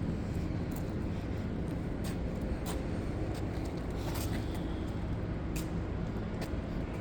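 Elevator running: a steady low machine hum with a few faint ticks.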